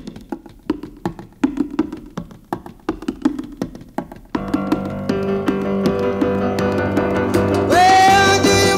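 Background music: a track opens with sparse short notes and clicks. A fuller band comes in about four seconds in, and a loud held melody line enters near the end.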